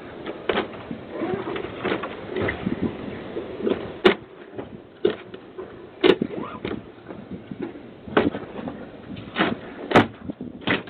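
A front door being forced: sharp knocks and clunks at uneven intervals as the door and frame are pried at, heard thin through a doorbell camera's microphone.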